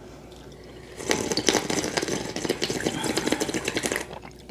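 A man slurping spicy kimchi-jjim broth straight from a bowl: a long run of quick, wet sucking noises from about a second in until near the end.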